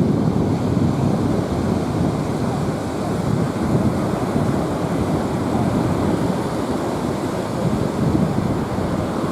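Wind buffeting the microphone in steady gusts over the wash of ocean surf.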